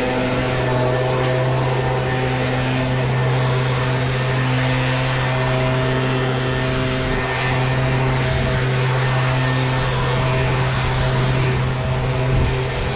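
Gas-powered leaf blower running steadily: a constant engine drone under a broad rush of air.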